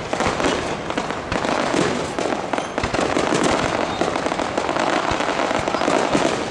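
Aerial firework shells bursting in quick succession, a dense run of bangs with no pause between them.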